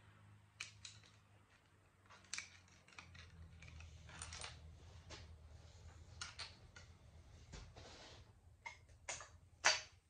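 Scattered light clicks and metallic clinks of a hand tool and small steel bolts being handled while bolts are taken off an outboard motor's cylinder head, with a sharper clink near the end. A low steady hum runs underneath.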